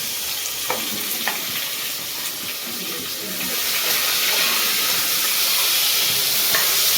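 Onions and whole spices sizzling in hot oil in a pan, with a couple of light knocks from a stirring spoon early on. The sizzle grows louder about halfway through.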